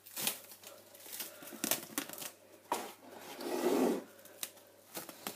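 Cling film crinkling as it is pulled off its roll, with a few light clicks and knocks and a louder rustling stretch under a second long about three and a half seconds in.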